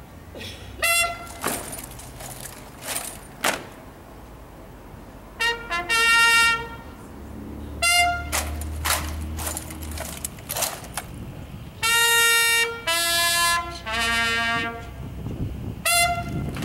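Military bugle call: groups of short, clear brass notes separated by pauses.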